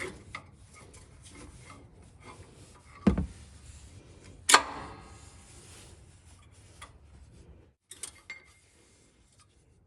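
Rear brake pads being worked out of a Toyota Land Cruiser Prado's caliper bracket: faint metal scraping and handling, a dull knock about three seconds in, and a sharp metallic clank with a brief ring about a second and a half later, then a few small clicks.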